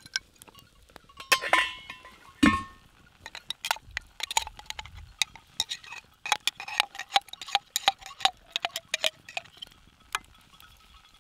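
A utensil clinking and scraping against a small metal cooking pot and a jar while spaghetti is stirred, with many quick clinks and two louder knocks in the first few seconds.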